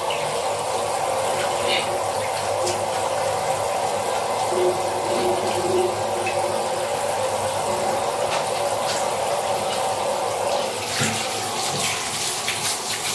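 Water running steadily from a handheld shower in a tiled shower stall. About eleven seconds in, it changes to a brighter, splashing spray as the shower is picked up to rinse a small dog.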